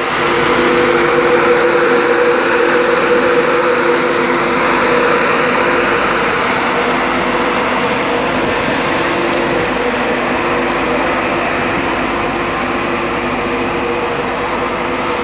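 LNER Class 91 electric locomotive 91131 running slowly alongside the platform: a loud, steady hum and rumble with a few constant low tones, easing off slightly toward the end.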